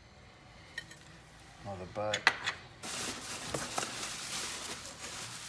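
Bubble wrap crinkling and rustling as it is stuffed into a cardboard box, starting about halfway through, just after a few sharp clicks of hard parts being handled.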